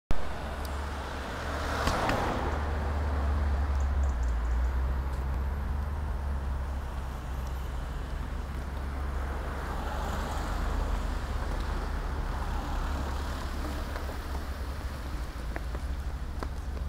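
Street traffic: cars driving past, each swelling and fading as it goes by, about two seconds in and again around ten seconds, over a steady low rumble.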